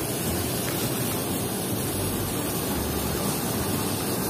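Steady rush of running water, washing toy cars clean.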